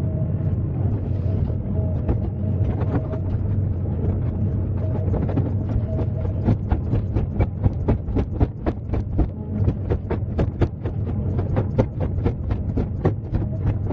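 Excavator's diesel engine running steadily with a low hum. From about six seconds in, a rapid, irregular string of sharp clanks and knocks joins it.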